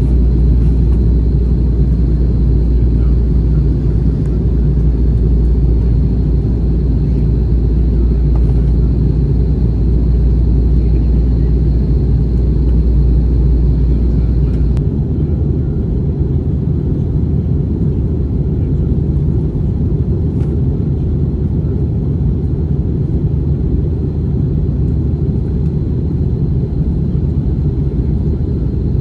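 Airbus A321 cabin noise during descent: a steady low rumble of airflow and engines with a faint thin high tone. About halfway through, the deepest part of the rumble suddenly drops away.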